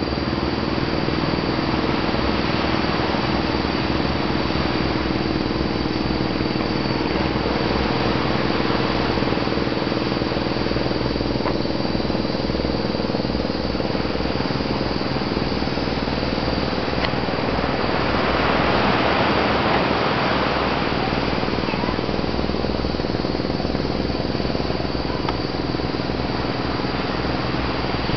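An engine running steadily at an even speed, a constant low hum with noise over it that swells slightly around two-thirds of the way through.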